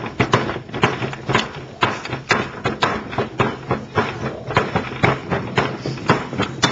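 Stone hand quern grinding wheat: a steady, rough scraping of stone on stone, with a sharp knock about twice a second as the stones are worked. Someone present calls it "so noisy".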